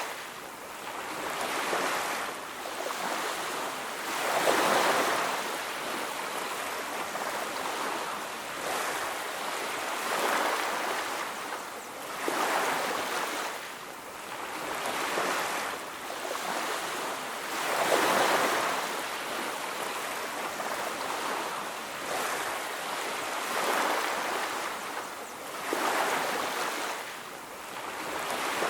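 Ocean waves breaking on a beach: a steady wash of surf that swells as each wave comes in and ebbs between them, several times.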